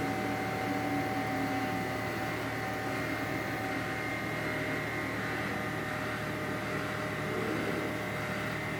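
Truck-mounted mobile crane's diesel engine running steadily while it holds a suspended load, a constant hum with a few steady tones in it.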